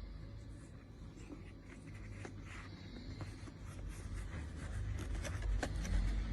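Handling noise: light scratching and rubbing with scattered small clicks, growing busier toward the end, over a steady low hum.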